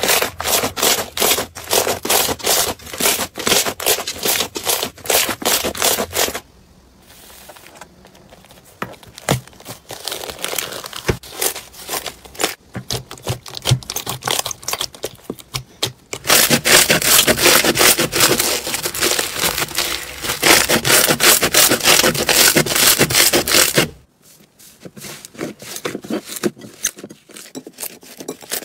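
Hands squeezing and kneading slime, giving rapid trains of crackling pops and squelches. The crackling is loud and fast at first, turns quieter for a long stretch, comes back dense and loud past the middle, then drops to quieter crackles near the end.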